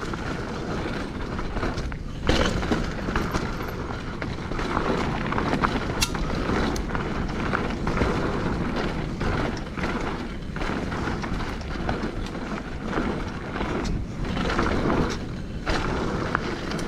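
Hardtail mountain bike rolling fast down rocky singletrack: continuous tyre noise with the frame and chain rattling and knocking over rough, chunky ground.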